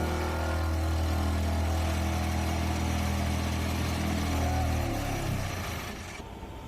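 Excavator-mounted hydraulic side grip vibratory pile driver running with a steady, loud low hum. About five seconds in, the hum falls in pitch and fades as the vibration winds down.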